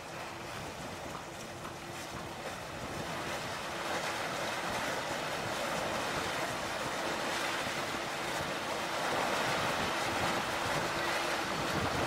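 Steady wash of wind and sea noise, with wind rushing on the microphone, growing louder from a few seconds in. A faint low hum comes and goes beneath it.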